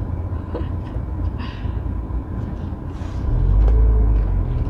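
Low rumble of a car's engine and tyres heard from inside the cabin while driving, growing louder about three seconds in.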